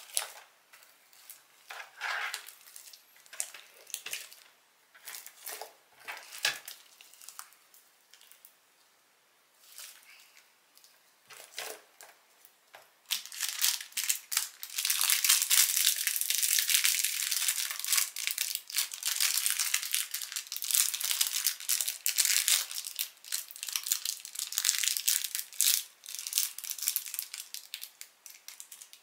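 Homemade slime being squeezed and worked by hand, making wet crackling and popping. The crackles are scattered at first, then about halfway through they turn into dense, continuous crackling that lasts almost to the end.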